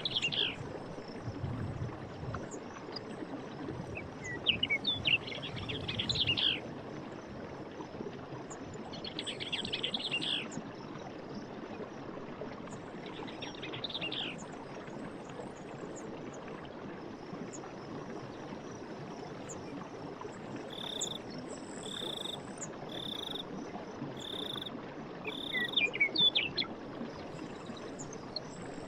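Steady rush of running stream water, with birds singing in short chirping phrases every few seconds. Near the end comes a run of five short, evenly spaced calls, about one a second.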